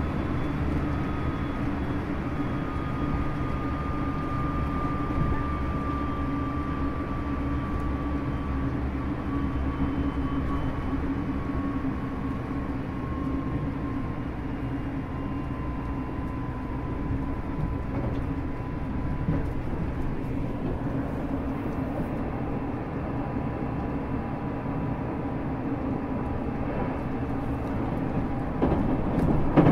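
Interior running noise of a JR Shikoku 8000 series limited-express electric train: a steady rumble of wheels on rail, with a faint whine slowly falling in pitch. The noise grows briefly louder near the end.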